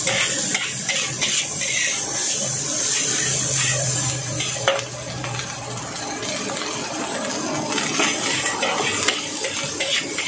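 Metal spatula scraping and tossing fried rice around a wok, repeated scrapes over a steady sizzle. A sharp clank a little under halfway, then the scraping stops for a few seconds before starting again.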